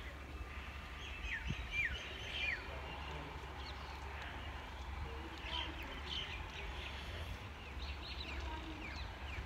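Small birds chirping with short, quick downward-sliding calls, several in the first couple of seconds and more again later, over a steady low rumble.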